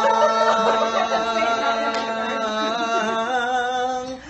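A man and a woman singing a Tagalog love song together, holding long, slightly wavering notes that break off near the end.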